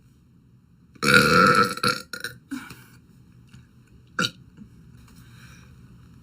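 A girl's loud burp about a second in, lasting about a second and trailing off in a couple of shorter gurgles, then one brief sharp sound about two seconds later.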